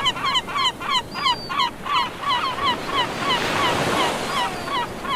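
A bird calling in a rapid series of short, hooked yelping notes, about four or five a second and slowing slightly, over the steady wash of surf that swells about halfway through.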